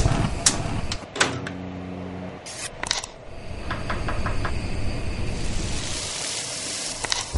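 Commercial-kitchen sounds in quick succession: sharp clicks and knocks, then a chef's knife striking a cutting board several times in quick succession about four seconds in, then the steady hiss of food frying in deep-fryer oil near the end.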